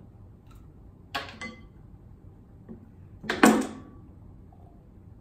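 Short, sharp handling noises from a plastic squeeze bottle of glitter glue as it is opened and squeezed over a glass bowl: two quick ones about a second in, and a louder, slightly longer one about three and a half seconds in.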